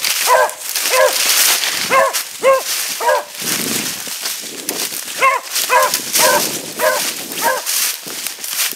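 A beagle hound giving tongue on a trail: about eleven short, evenly spaced barks in two runs, with a pause in the middle.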